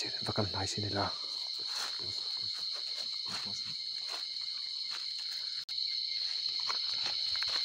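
A steady, high-pitched chorus of night insects runs throughout. Low voices come in the first second, and scattered rustles and steps sound in the undergrowth. The sound drops out for an instant about two thirds of the way through.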